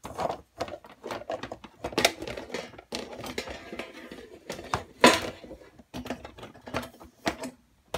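Metal cutlery clinking and clattering against dishes in a kitchen sink as silverware is washed by hand: irregular knocks and clanks, the loudest about two and five seconds in.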